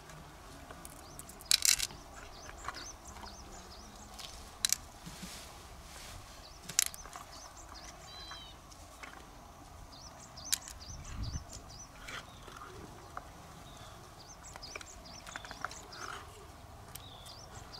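Sharp clicks and scrapes of a knife and hard shells as freshwater pearl mussels are pried open and searched for pearls, the loudest clicks a little under two seconds in and around five and seven seconds.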